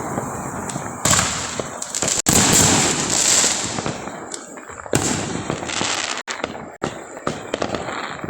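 Fireworks going off: a string of bangs over a steady crackle, the loudest about two seconds in, followed by a long crackling hiss, then more sharp pops near the end.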